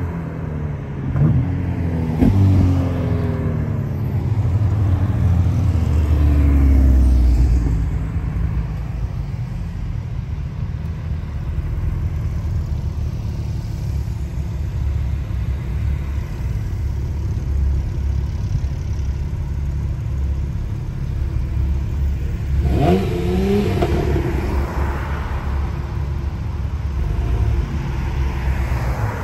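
A convoy of sports cars, among them a Ferrari and Porsche 911 convertibles, driving past: engines revving up and down as they accelerate away, with a few sharp cracks in the first couple of seconds. A loud low rumble comes about seven seconds in, then a steady low engine rumble, and another car revs up about 23 seconds in.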